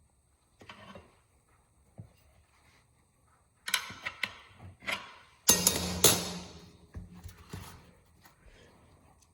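Metal tire spoons clanking and scraping against a motorcycle wheel rim as the tire is pried off. The noise comes in irregular bursts with pauses, loudest about five to six seconds in.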